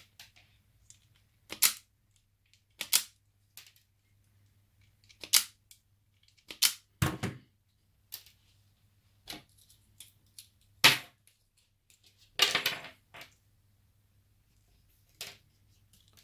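Self-adjusting wire stripper snapping shut as it cuts and strips insulation from electrical wires: sharp single clicks every second or two, a denser cluster near the end, and one duller knock about seven seconds in.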